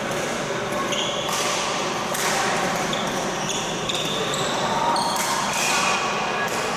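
Badminton rally in a large sports hall: sharp racket strikes on the shuttlecock and short, high-pitched squeaks of shoes on the court floor, over a background of voices and play from neighbouring courts.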